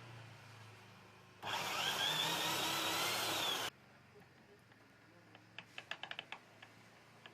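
Electric drill run for about two seconds, its whine rising in pitch, then levelling off before it cuts off suddenly. A quick series of faint clicks follows near the end.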